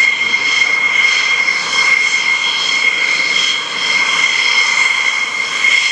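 F-16 fighter's jet engine running at taxi power: a steady high-pitched whine with a second, higher tone over a rushing hiss.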